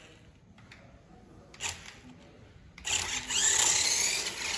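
Toy RC climbing car's small electric motor and gears whining as it drives off, starting about three seconds in. A single short knock comes about one and a half seconds in, before the motor starts.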